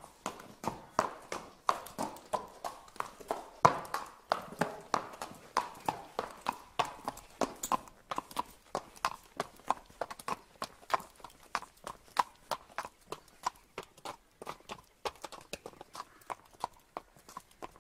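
Horses' hooves clip-clopping steadily on a paved street, about three to four sharp strikes a second.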